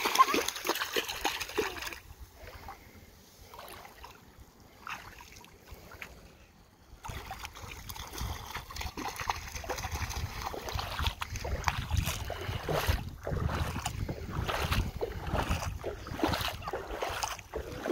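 Bare feet splashing through ankle-deep water as children run in the shallows, loudest in the first two seconds. From about seven seconds in, a low rumble of wind on the microphone sets in, with faint splashes under it.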